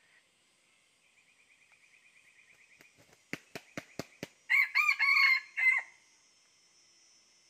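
Red junglefowl rooster beating its wings, about six sharp claps in a second, then giving a short, broken crow, the loudest sound.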